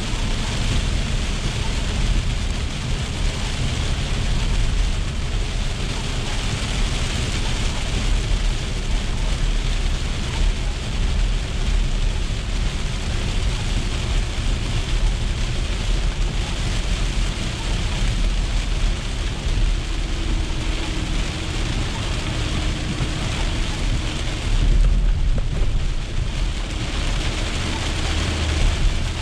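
Heavy rain on the windshield and roof heard from inside a moving car, a steady hiss over a constant low road and engine rumble. Near the end there is a brief louder surge of low rumble.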